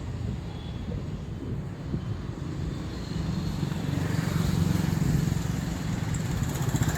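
Motor vehicle running, a steady low rumble that grows louder about three seconds in.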